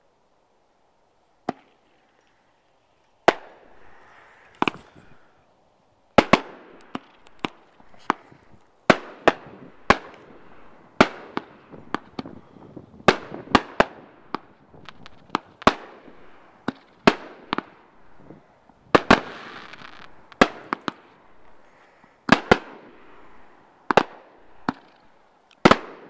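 Aerial fireworks going off: after a second or so of quiet, a few scattered sharp bangs, then from about six seconds in a quick run of shell reports, one or two a second, with crackling between them.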